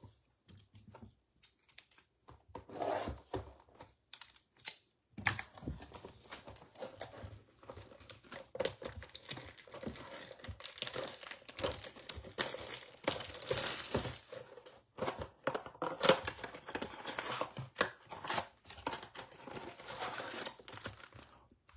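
Plastic shrink-wrap being torn and crinkled off a blaster box of trading cards, with the packs rustling as they are taken out. Only a few faint clicks for the first five seconds, then steady crackling and crinkling.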